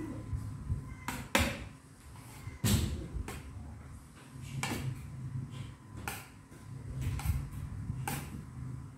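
Metal spoon and fork clinking and scraping on a ceramic dinner plate while eating, a series of sharp, irregular clinks about once a second.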